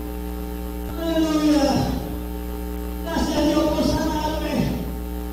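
Steady electrical mains hum, with two drawn-out vocal phrases over it. Each phrase falls in pitch at its end.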